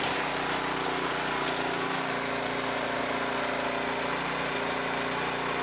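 Mini excavator engine running steadily at an even pitch.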